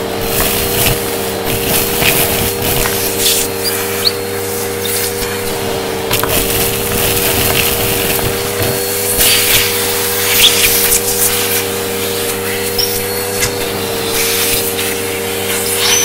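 Upright vacuum cleaner running with a steady whine while its hose and crevice tool suck up dry debris from carpet, the grit crackling and rattling irregularly up the hose.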